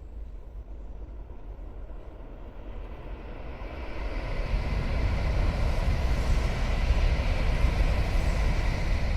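A vehicle's rumbling noise swells from about four seconds in and stays loud.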